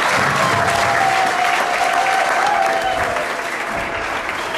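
Hall audience applauding steadily, with one long held call rising over the clapping for the first few seconds.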